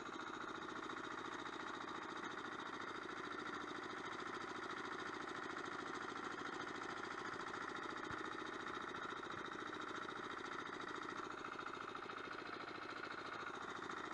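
Engine of an Agria 1900 two-wheel tractor running steadily with a fast, even beat.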